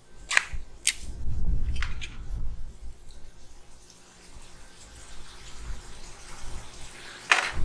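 Metal pull-tab lid of a soup can being peeled open with a few sharp clicks, then thick condensed cream of chicken soup sliding out of the upturned can into a ceramic bowl. A sharp knock comes near the end.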